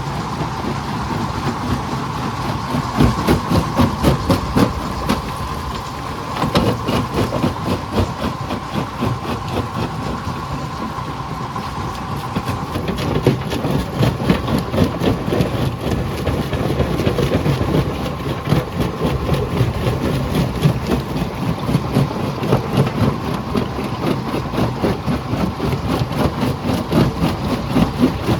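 Jaw crusher running and crushing rock, a dense, continuous clatter of knocks and rattles over a steady machine drone.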